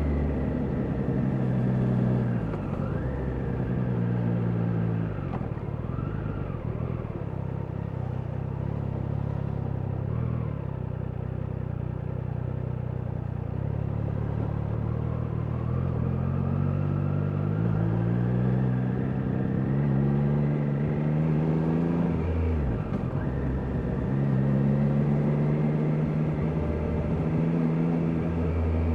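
Triumph Daytona 660's inline three-cylinder engine under way, its pitch climbing through the revs and dropping sharply at each gear change, several times over, with a steadier, lower stretch in the middle.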